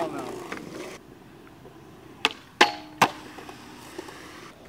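Skateboard wheels rolling on concrete, then three sharp clacks about two to three seconds in: the board popping, hitting the handrail and landing. The middle hit rings briefly.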